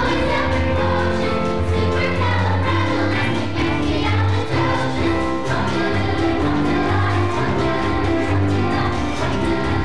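Group of singers, a school chorus, singing a song over instrumental accompaniment with a steady low bass line that moves from note to note.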